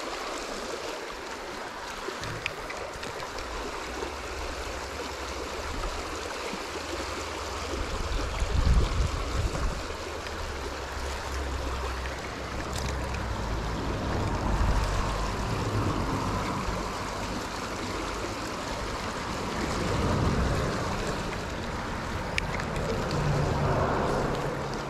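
River water rushing steadily, with low rumbles coming and going, the strongest about nine seconds in.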